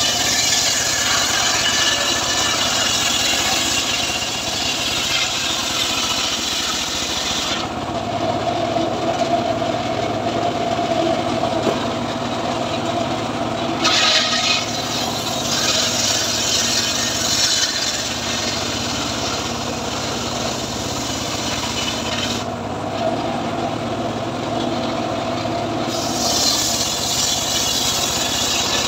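Homemade bench circular saw ripping a mahogany slab lengthwise. There are three long cuts: one at the start, one through the middle and one beginning near the end. Each adds a high hiss over the blade's steady running tone, and between cuts the blade spins free.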